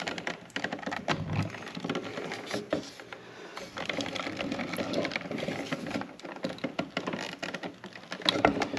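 Irregular clicks, scrapes and small knocks of a metal generator inlet box being handled and pressed shut over stiff 6-gauge wire.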